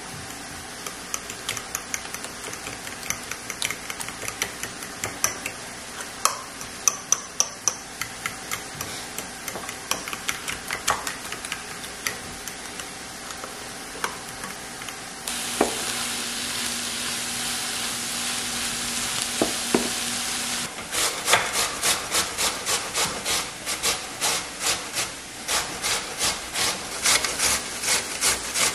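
Metal spoon stirring a thick sauce in a ceramic bowl, with many light irregular clicks and scrapes against the bowl. Later a steady hiss, then food rubbed down a stainless steel box grater in loud, regular scraping strokes about twice a second.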